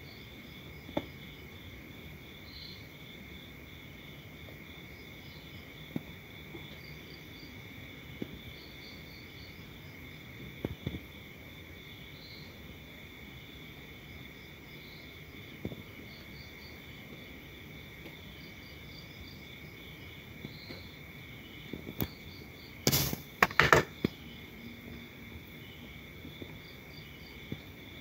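Crickets and other insects chirping steadily, a thin high buzz with small repeated chirps over it. A few sharp clicks of the radio's buttons being pressed are scattered through it, with a louder cluster of clicks and knocks a few seconds before the end.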